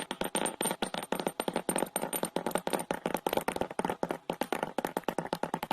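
A quick, uneven run of sharp taps or clicks, several a second, without a break.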